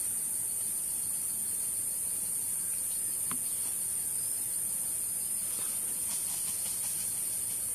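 Insects droning steadily at a high pitch, an unbroken hiss-like chorus, with a faint click about three seconds in.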